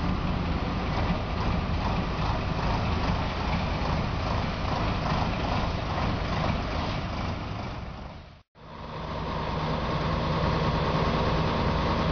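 Scania-Vabis LB111 truck's 11-litre six-cylinder diesel running at low speed as the loaded tipper semi-trailer rolls slowly along. The sound fades and drops out about eight seconds in, then returns as a steady idle.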